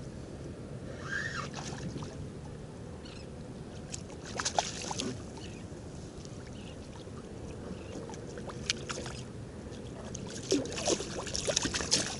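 Water sloshing around a fishing kayak over a steady low hum, with scattered clicks, knocks and small splashes that cluster near the end.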